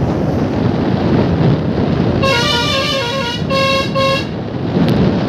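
Vehicle horn sounding a short run of stepped notes, about two seconds in and lasting about two seconds, over a steady low rumble of wind and road noise.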